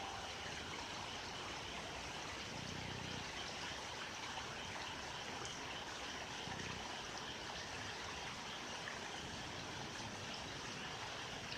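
Steady rush of running stream water at night, with a couple of faint low frog calls, about three and seven seconds in.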